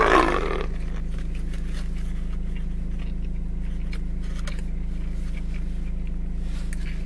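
A bite into a soft burger bun near the start, then chewing with faint scattered crunches and paper rustles. Under it runs the steady low hum of a car's engine idling.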